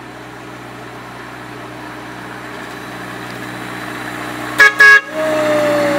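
Miniature railway locomotive running as the train approaches, its engine hum steadily growing louder, with two short loud toots on its horn about four and a half seconds in. A high tone, slowly falling in pitch, follows the horn.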